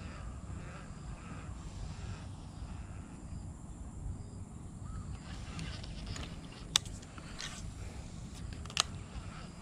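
Quiet outdoor ambience with a steady low rumble, broken by two sharp clicks about two seconds apart near the end.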